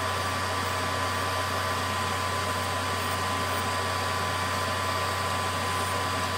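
Electric nail drill (e-file) running steadily with a thin whine as it files a fingernail, over the steady rush of a nail dust collector's fan beneath the hand.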